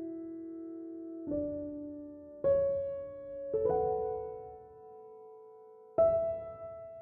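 Slow, gentle piano music: sustained chords struck every second or two and left to ring and fade.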